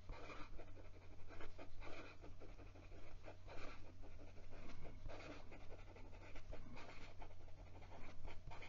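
Fountain pen nib with a stiff, fine point writing quickly across lined notebook paper: a constant run of short, irregular scratching strokes as the word is written over and over.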